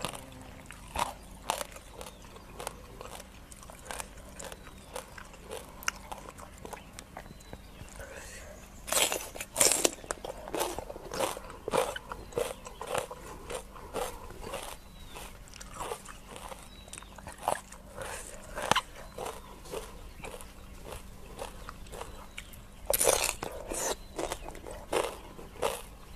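Close-miked chewing and crisp crunching of a mouthful of papaya salad with raw rice-field crabs and fresh raw vegetables: a run of small crunches and mouth clicks, with louder bursts of crunching about nine seconds in and again about twenty-three seconds in.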